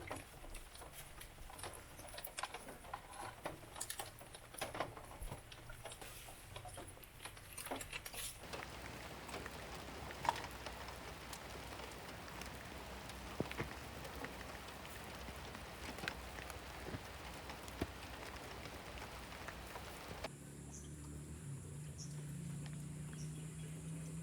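Rain falling: scattered drops and taps over a faint hiss at first, settling into a steady, even patter. About twenty seconds in it cuts off suddenly, giving way to a steady low hum.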